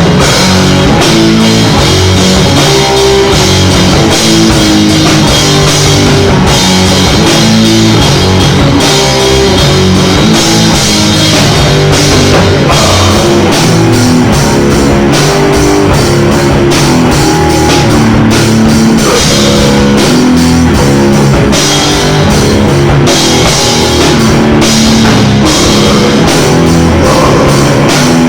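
A rock band rehearsing: drum kit and electric guitar playing a loud, dense, driving piece, with regular drum hits throughout.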